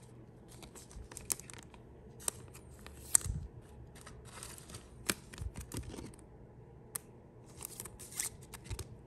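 Glossy trading cards being handled and flipped in the hands, with scattered sharp clicks and short rustling swishes. Near the end a card is slid into a rigid clear plastic toploader.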